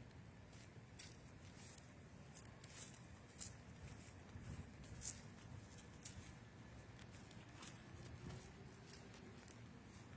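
Near silence: faint background noise with scattered light clicks, about one a second at irregular intervals, the sharpest about five seconds in.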